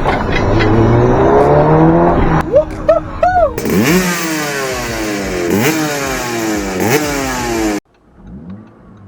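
Audi S3 8P's turbocharged 2.0 TFSI four-cylinder accelerating hard, revs climbing and dropping back at each upshift, with a few quick rev blips in the middle. The engine sound cuts off suddenly near the end, leaving a much quieter background.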